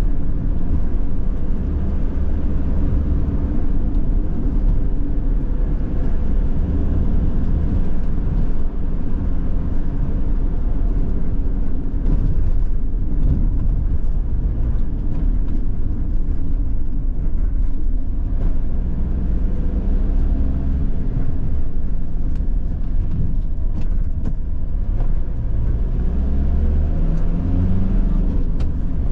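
A van driving, heard from inside the cab: a steady low rumble of engine and tyres on the road. Near the end the engine note climbs briefly.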